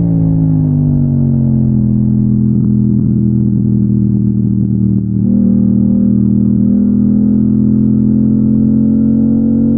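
Yamaha MT-07's parallel-twin engine under way: at first falling in pitch as it slows, then holding a steady note, with a brief dip and change of note about five seconds in, and slowly rising again toward the end.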